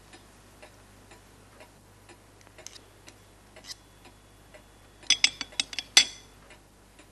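Knife and fork clinking and scraping on a china plate as food is cut, with a quick run of sharp clinks about five seconds in, the loudest near six seconds. Under it runs a faint, even ticking about twice a second.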